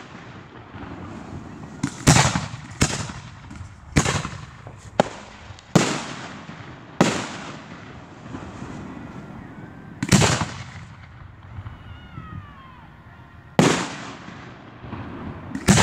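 Aerial firework shells bursting overhead: about nine sharp booms at irregular intervals, each trailing off in a rolling echo.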